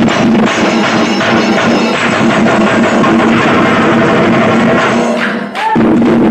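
Shinkari melam ensemble: many chenda drums beaten with sticks in a fast, dense, loud rhythm. The playing dips briefly about five and a half seconds in, then comes back at full level.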